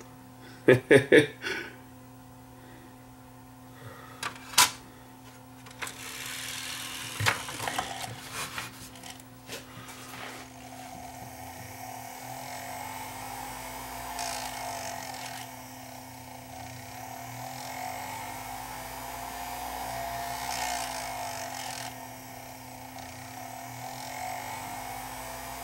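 Panasonic DVD-S35 DVD player's spindle motor spinning a disc that it cannot read: a whine that rises and falls several times as the disc speeds up and slows down, after a couple of clicks as the disc is loaded. The owner suspects the optical pickup or the spindle motor.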